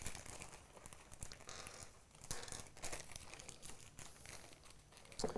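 Faint crinkling and rustling of a small clear plastic hardware bag being pulled open and handled.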